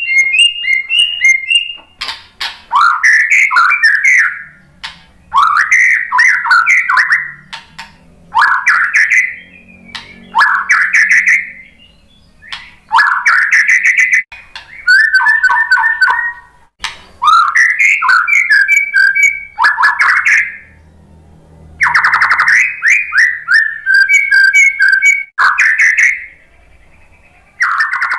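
White-rumped shama (murai batu) singing: about a dozen short, fast phrases of gliding whistled notes and rattling chatter, each one to two seconds long, with brief pauses between them.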